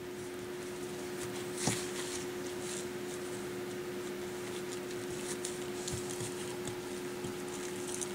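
Faint scattered rustling and light clicks of Pekingese puppies moving about, with one sharper click about a second and a half in, over a steady low hum.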